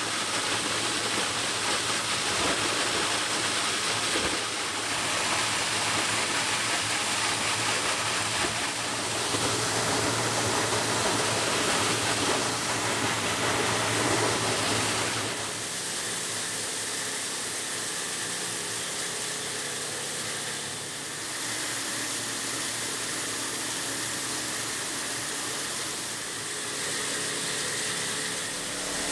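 Plastic-bottle recycling machinery running steadily, with water rushing through the flake-washing line. About halfway through, the low hum drops away and the sound becomes thinner.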